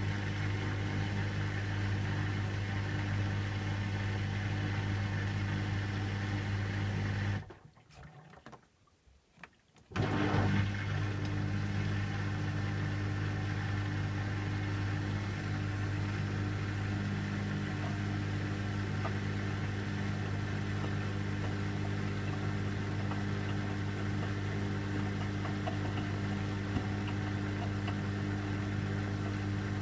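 Beko washing machine running a 60 °C cottons cycle with a steady low electric hum. The hum cuts out for about two and a half seconds, then starts up again.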